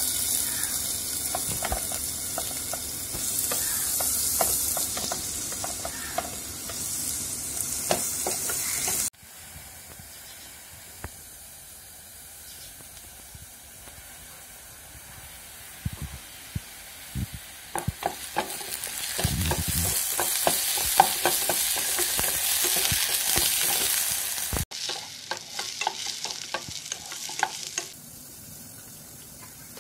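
Chopped onions and fennel seeds frying in hot oil in a nonstick pan, sizzling loudly, with light knocks and scrapes of stirring. The sizzle breaks off abruptly about nine seconds in, is quieter for a while, then comes back strongly before cutting off again a few seconds before the end.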